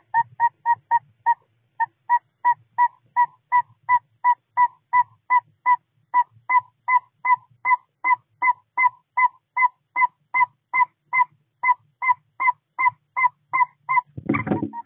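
Male northern saw-whet owl giving its advertising call: a long, even series of short whistled toots, about three a second, with one brief pause. Near the end a loud, noisy scuffling cuts in.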